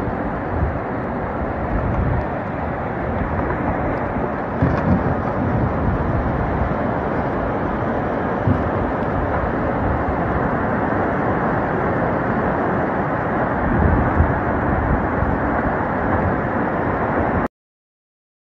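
Flash-flood torrent of muddy water rushing down a street, a steady, unbroken rushing noise. It cuts off abruptly to silence about a second before the end.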